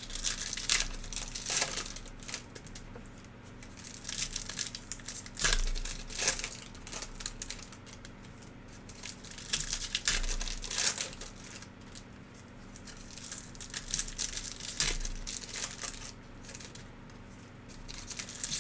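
Foil wrapper of a trading card pack crinkling and tearing as it is opened by hand, in several irregular bursts a few seconds apart.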